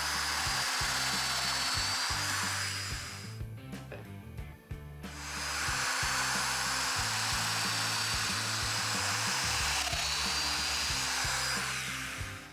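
Festool Domino DF 500 joiner running to cut 4 mm mortises: a steady high whine over a rushing hiss. It runs for about three seconds, stops, and starts again about five seconds in for a run of about seven seconds.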